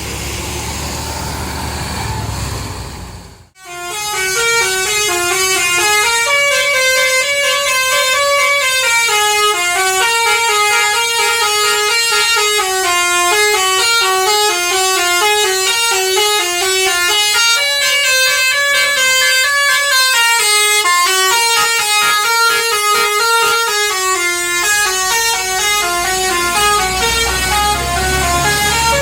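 Tour bus's basuri telolet horn playing a long melody of stepping, changing notes over the bus's engine. It starts about four seconds in, after a few seconds of engine and traffic noise and a brief dropout, and keeps playing loudly to the end.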